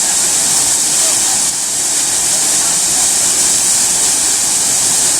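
Waterfall rushing: a loud, steady wash of falling water, heaviest in a high hiss.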